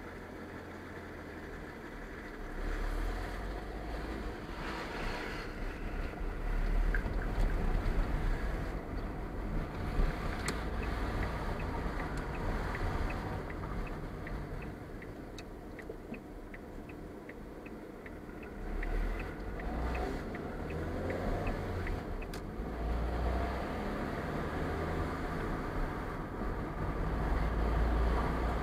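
Car driving, with engine and road rumble heard from inside the cabin that swells and eases with speed. Midway, a turn-signal indicator ticks evenly, about two ticks a second, for roughly ten seconds around a junction stop and turn.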